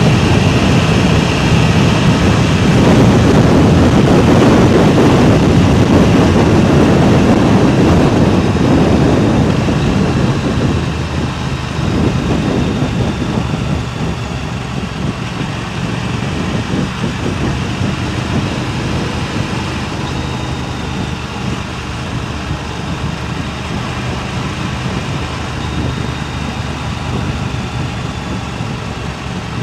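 Wind buffeting a DJI Mic Mini wireless microphone, a loud dense rumble that eases somewhat about ten seconds in.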